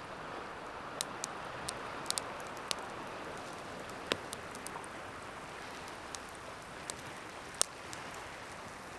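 Pine fatwood campfire crackling, with sharp irregular pops, the loudest about four seconds in and again near the end, over a steady wash of ocean waves.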